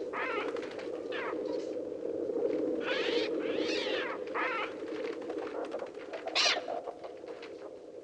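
Massed gulls and crows as an electronically made film sound effect: a steady low drone from the flock, with several screeching calls that rise and fall over it. The loudest call is a sharp one about six seconds in.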